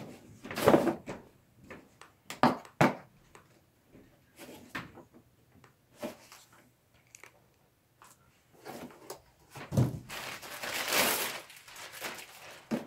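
Hard plastic tool case being handled and shifted, giving a string of knocks and clunks. Near the end comes a couple of seconds of plastic mailer bag rustling.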